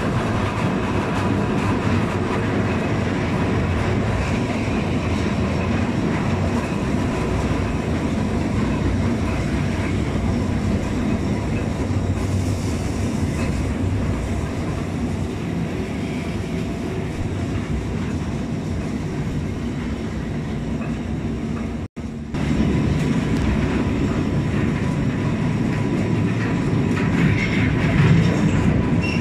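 Underground fortress train running through a tunnel, heard from aboard its open wagons: a loud, steady rumble and rattle of the wagons and wheels on the track. The sound cuts out for a split second about three-quarters of the way through, then carries on.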